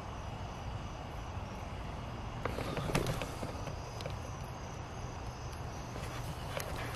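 Crickets chirping faintly at night over a low steady rumble, with a short burst of crackling and rustling about two and a half seconds in.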